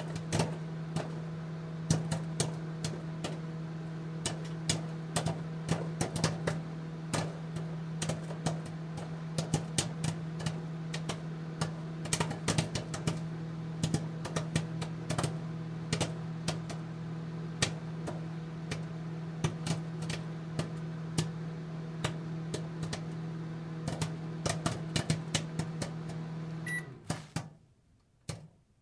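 Popcorn kernels popping many times a second, irregularly, over a steady appliance hum. The hum cuts off about 27 seconds in, with a short high beep around then, and a few last pops follow.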